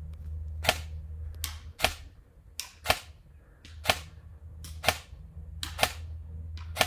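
Airsoft electric gun (AEG) firing single shots, about seven sharp snaps roughly a second apart, each with a fainter snap just before it, over a low steady hum.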